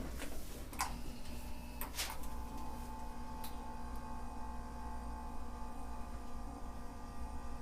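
A couple of knocks as a person settles face down on a treatment table, then about two seconds in an electric motor starts and runs with a steady hum: a motorized chiropractic table beginning to stretch the lower spine.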